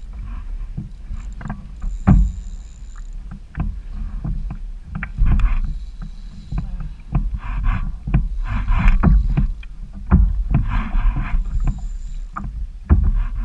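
Kayak on choppy water: water splashing and slapping against the hull in irregular bursts, with scattered knocks and a steady low rumble of wind on the microphone.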